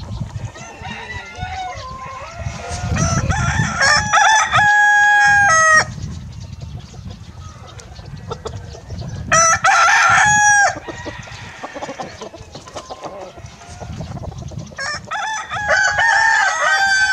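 Pavlovsk roosters crowing: three long crows, about three, nine and fifteen seconds in, each ending on a long held note, with quieter clucking between them.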